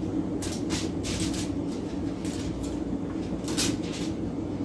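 Soft, irregular swishes of a pastry brush spreading olive oil over mango slices and corn on a foil-lined sheet pan, over a steady low hum.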